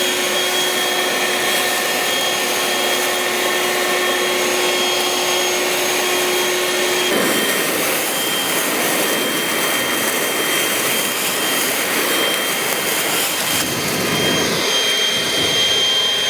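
Battery-powered leaf blowers, a Stihl BGA 57 and a Toro, running at full power: a steady rush of air with a high electric-motor whine. About seven seconds in, the whine's pitch changes, as the blowers are compared one against the other.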